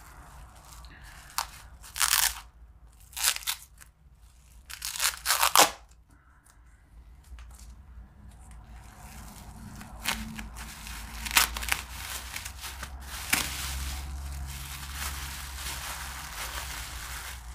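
Tape ripped off in several short tears, then a thin plastic bag crinkling and rustling steadily as it is worked off a knife's handle.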